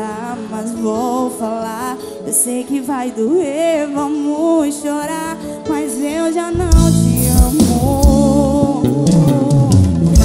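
Brega song: a woman sings wavering, held notes over light backing, then about six and a half seconds in a heavy bass line and drums kick in and the music gets louder.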